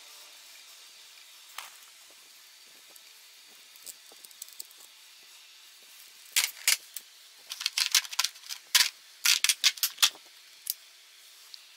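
Sharp metallic clinks and clatters of engine parts being handled inside an open aluminium motorcycle crankcase during disassembly. After a few faint clicks, a quick run of loud clinks comes in the second half and lasts about four seconds.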